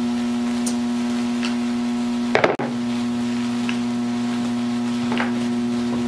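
Steady electrical hum from the high-voltage transformer and arcs of a homemade Jacob's ladder, with scattered faint ticks and one sharp crack about two and a half seconds in.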